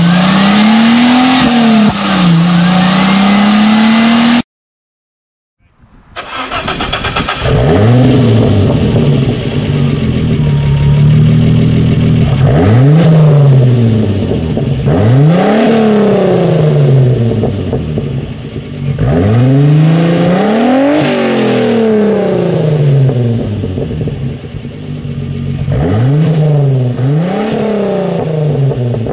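Renault Alpine GTA V6 Turbo's turbocharged V6 through a custom exhaust. First it runs loud under load with its pitch rising and falling. After a short silence about four seconds in, it is blipped over and over, each rev climbing sharply and dropping back, a few seconds apart.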